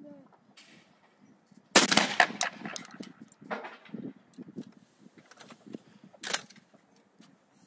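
A shotgun fires one loud shot about two seconds in, the report ringing on for about a second. Small clicks and clatter follow as shells are taken from a box and loaded into the gun, with another, quieter sharp crack near the end.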